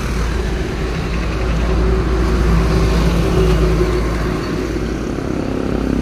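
Hyundai Kona's engine idling steadily with the air conditioning switched on.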